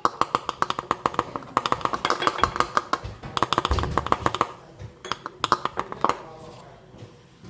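Quick runs of light, irregular clicks and crackles as dried herbs are packed into a small glass bottle. The clicks break off briefly about three seconds in and thin out after about six seconds.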